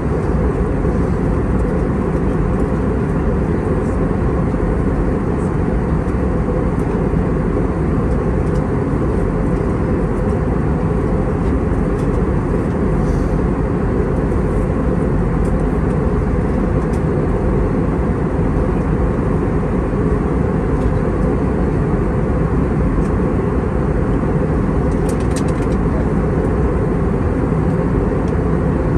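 Steady cabin rumble inside an Airbus A320-232 airliner, even and unchanging, with a faint click or two near the end.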